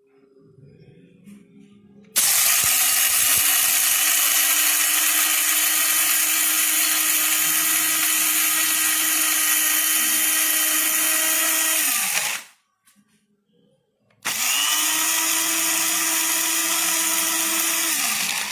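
Electric blade coffee grinder running with a steady whine in two bursts, one of about ten seconds and a shorter one of about four, each winding down in pitch as it is released.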